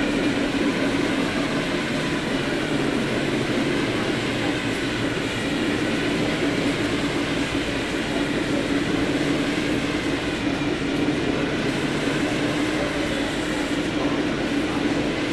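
A train standing at the station platform, running with a steady, unchanging hum.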